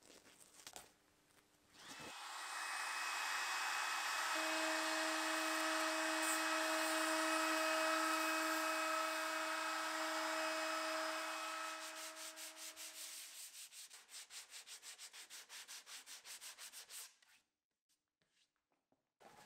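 Compact trim router starting up about two seconds in and running with a steady hum over a rasping hiss as its bit flush-trims the overhanging wood veneer along a cabinet edge. About twelve seconds in it is switched off and winds down with a pulsing whir for several seconds before stopping.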